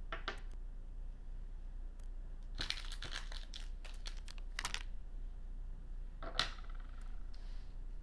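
Paint tubes and brushes being handled and set down on a glass tabletop: short crinkling clicks and taps in small clusters, the densest a little over two and a half seconds in.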